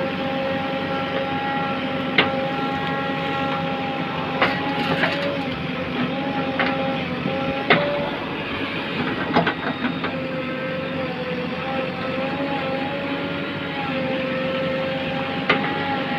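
JCB backhoe loader's diesel engine running steadily under working load, its pitch sagging slightly for a few seconds midway. Over it come several sharp knocks, spread out irregularly.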